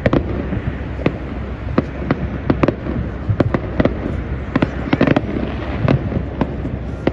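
Big fireworks display: a fast, irregular string of sharp bangs and pops, several a second, over a continuous low rumble of more distant bursts.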